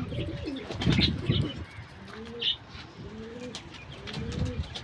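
Domestic pigeons cooing: short, low, rising-and-falling coos repeated about once a second, with a few brief high chirps of small birds mixed in.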